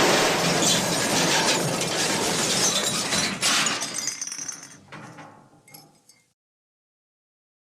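The MGM "elephant smash" cartoon crash sound effect: a long crash of breaking glass and clattering debris that thins out into scattered tinkles and stops about six seconds in.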